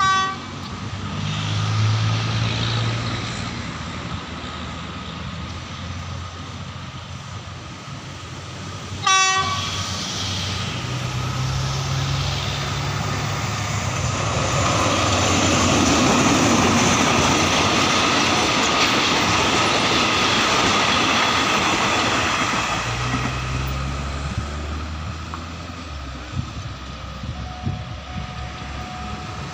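Diesel locomotive with a passenger train sounding short horn blasts near the start and again about nine seconds in, its engine droning as it approaches. The rumble and clatter of the wheels on the rails is loudest as the train passes through the level crossing.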